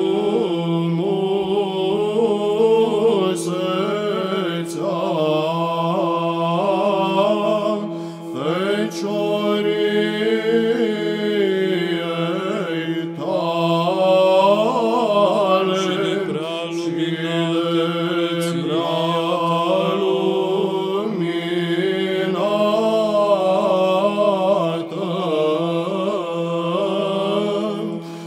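Unaccompanied Byzantine chant sung in Romanian by male cantors: one voice sings a winding, ornamented melody while another holds a steady ison drone beneath it. The melody breaks off briefly about eight seconds in, while the drone carries on.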